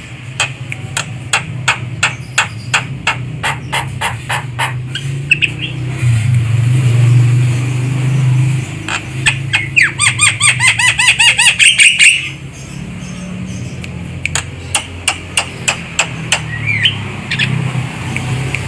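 Javan myna calling: rows of sharp, quickly repeated notes, then about nine seconds in a loud three-second burst of rapid chattering, then more sharp notes. A steady low hum runs underneath.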